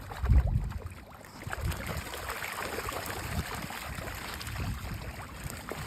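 Water splashing and trickling, a busy patter of small splashes, with a heavy low thump near the start.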